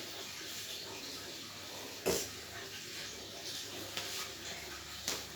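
Household noise: a sharp knock about two seconds in and another near the end, with a few softer taps between, over a steady faint hiss.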